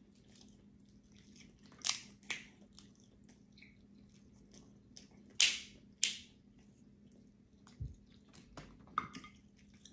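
Close-up eating of crab legs: sharp snaps and cracks of crab shell being broken by hand, mixed with chewing and sucking mouth sounds, the loudest snaps about two and five to six seconds in. A dull knock sounds near the eighth second.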